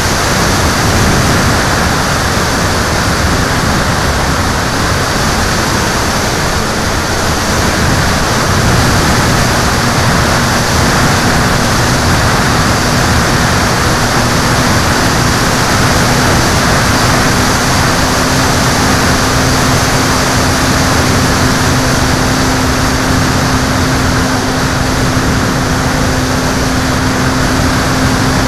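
Wind rushing over a camera mounted on a small propeller aircraft in flight, with the steady hum of its motor and propeller underneath, rising slightly in pitch a little past halfway.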